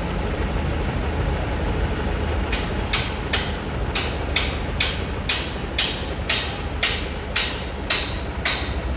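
Heavy engine running steadily, joined about two and a half seconds in by sharp, evenly spaced knocks, about two a second, like hammer blows, that keep going.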